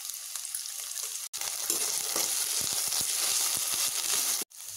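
Chopped onions, curry leaves and green chillies sizzling in hot oil in a pan, with ginger-garlic paste just dropped in. From about two seconds in a spatula stirs and scrapes through them in a run of short strokes, and the sound cuts out briefly twice.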